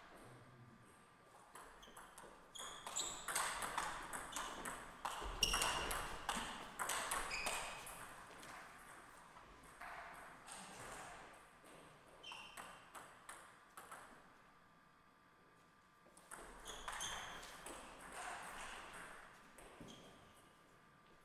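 Table tennis ball clicking back and forth off the table and rubber-faced paddles in quick rallies, each hit a sharp ping. There is one rally from about three seconds in and another near the end, with a few loose bounces between them.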